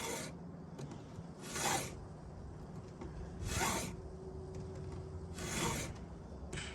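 Stihl 2-in-1 saw file being stroked across a chainsaw chain: short rasping strokes, about one every two seconds.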